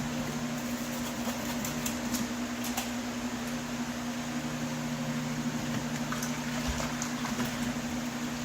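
Hand sanding of a metal HVAC register with a 180-grit sanding sponge: a soft, continuous scratchy rasp with a few light clicks, over a steady low mechanical hum.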